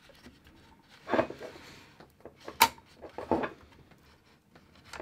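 Handling noise from an airsoft L85 rifle's plastic 3D-printed rail kit and its battery wiring: parts rubbing and scraping, with one sharp click about two and a half seconds in.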